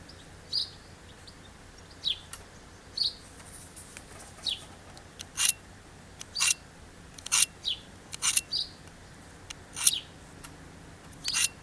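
Knife blade drawn through the V-notch of a Victorinox pocket sharpener in short, rasping strokes, shaving metal off the edge; the strokes come lightly at first, then about six harder ones in the second half.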